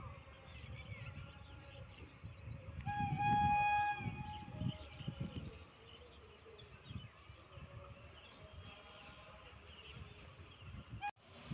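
A locomotive horn sounds once, a single held note lasting about a second, starting about three seconds in. Birds chirp throughout over a low, uneven rumble.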